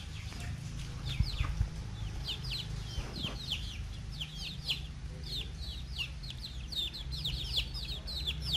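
Young chickens peeping: a steady stream of short, high, falling chirps, several a second, with a few low knocks about a second in.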